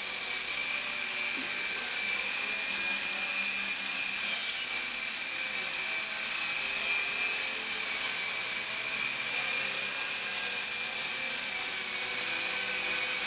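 Axe CX micro RC helicopter in flight, its small electric motor and rotor blades giving a steady high-pitched whine.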